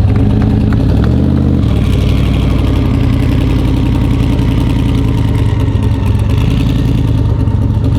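A street-race car's engine running loud and steady, its pitch rising briefly about a second in, then holding.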